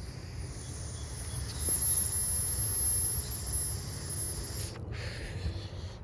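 A steady high hiss with a thin whistling tone in it, lasting about five seconds and cutting off suddenly, over a low wind-like rumble.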